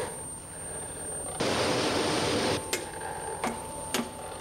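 Steam engine of a paddle steamer hissing out steam in a burst of about a second, then a few sharp metallic clanks over a faint steady tone. The engine is being stopped over a crank that has overheated and seized.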